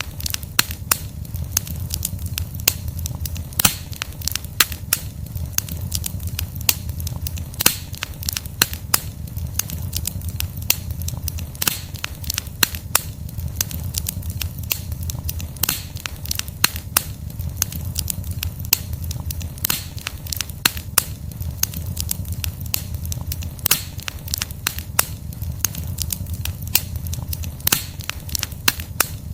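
Wood fire burning, with logs crackling and popping in irregular sharp snaps, several a second, over a steady low rumble of the flames.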